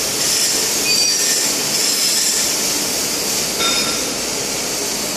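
Steady industrial workshop background noise: a constant high hiss, with a few brief high-pitched squeaks about a second in and again near four seconds.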